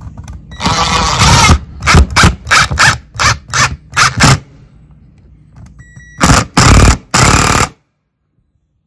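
Power drill driving screws in short trigger bursts: one longer run, then about eight quick pulses roughly three a second, and after a pause two more longer runs before it stops.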